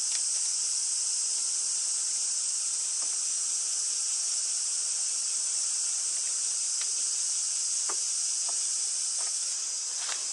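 Cicadas singing in a loud, steady chorus, one unbroken high-pitched drone. A few faint clicks from a spinning rod and reel being handled sound through it.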